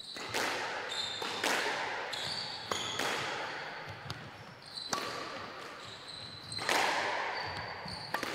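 Squash rally: a sharp, echoing crack of the ball off rackets and walls about once a second, with short squeaks from the players' shoes on the wooden court floor between the hits.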